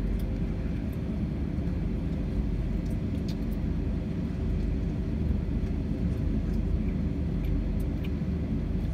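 Steady rumble of an Airbus A321 airliner's engines and airflow heard from inside the passenger cabin.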